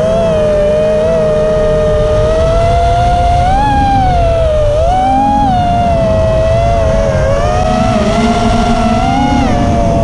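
Electric motors of an FPV drone whining, the pitch wavering up and down as the throttle changes, over steady wind rush on the onboard camera's microphone.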